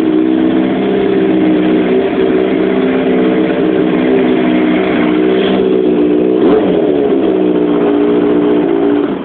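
Honda CB 400cc motorcycle engine running at a steady idle, with a brief rise and fall in pitch about six and a half seconds in. It stops abruptly near the end.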